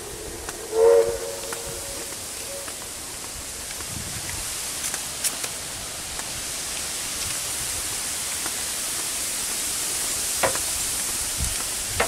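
Dry reeds rustling with a steady hiss of wind while walking along a path through a tall reed bed, with a few soft footfalls and ticks. About a second in, a short, loud honking tone with overtones sounds once.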